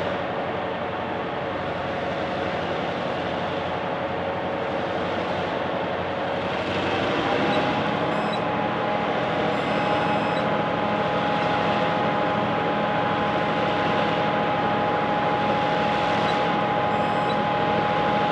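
Several EMD 567-engined diesel locomotives running hard while straining to restart a stalled heavy grain train on a steep grade. About seven seconds in the engines throttle up: their running rises in pitch and grows a little louder.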